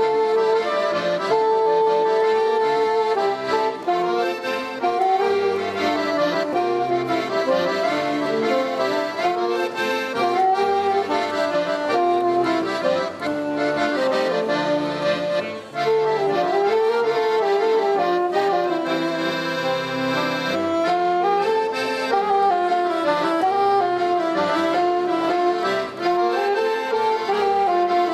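Saxophone and chromatic button accordion playing a tune together, opening on long held notes and then moving into a winding melody.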